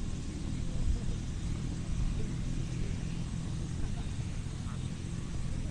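Air ambulance helicopter running on the ground before takeoff: its rotor and turbine make a steady low rumble.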